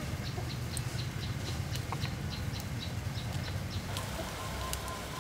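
A small animal's short high chirps, about three a second, over a steady low rumble; the chirping stops about four seconds in.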